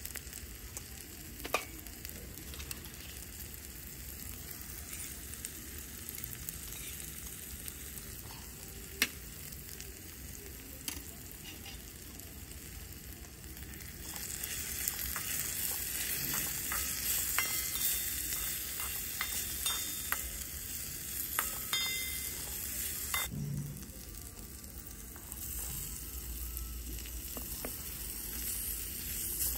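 Onions, tomatoes and spices sizzling in a miniature wok over a small wood fire, a steady frying hiss with a few sharp clicks. From about halfway in a tiny spatula stirs and scrapes the pan, and the sizzle gets louder.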